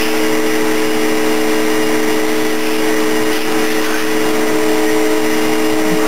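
Vacuum cleaner running steadily: a constant motor hum with two held tones over a rush of air through the hose.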